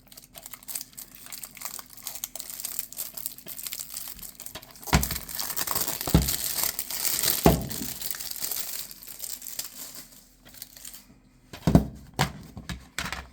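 Plastic wrapping on a DVD case crinkling and tearing as it is pulled off, loudest in the middle. A few sharp knocks from the case being handled come about five, six and seven and a half seconds in, and again near the end.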